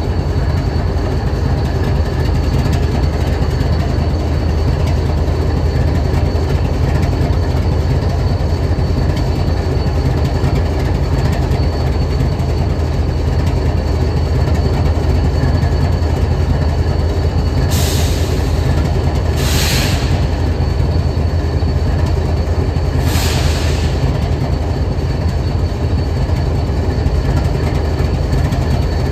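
Diesel locomotive engine idling with a steady low rumble. Three short hisses come in about two-thirds of the way through.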